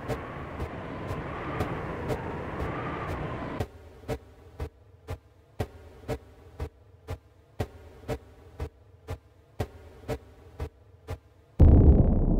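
Electronic music track: a droning synth pad with a wavering tone, which drops out about four seconds in. It leaves a steady beat of sharp ticks, about two a second. Near the end a loud, low rumble comes in.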